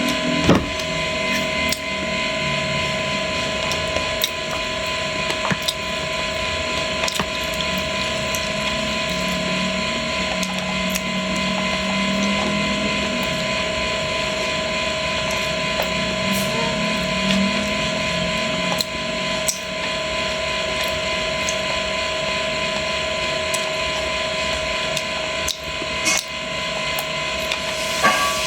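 Fish frying in hot oil in a pan: a steady sizzle with scattered pops, over a steady whining hum.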